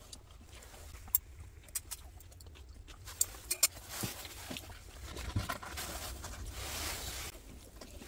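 A few light clicks and taps of chopsticks against the dishes, spread over the first half, over a steady low rumble of outdoor background noise.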